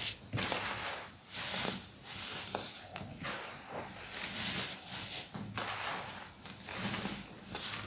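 Baking soda being crushed by hand: a run of soft crunches and crumbles, one or two a second.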